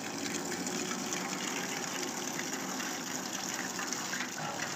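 Steady rush of water, an even hiss without breaks.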